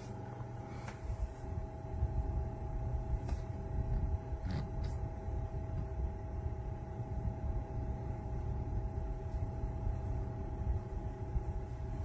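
Mini portable evaporative air cooler running: a steady motor hum over a low, fluctuating rumble, with a few faint clicks in the first five seconds.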